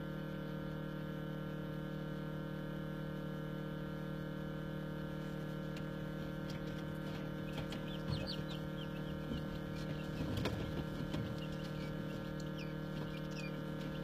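Newly hatched quail chicks peeping in short, high, falling chirps that start about five seconds in and become more frequent, with a few soft knocks of chicks moving on the wire floor. Under them runs the steady hum of the egg incubator.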